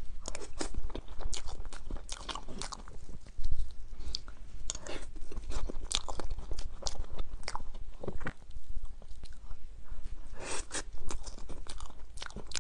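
Close-miked eating of a chocolate-coated cake: biting and chewing with many crisp, irregular crunches, thickening into a quick flurry about ten and a half seconds in.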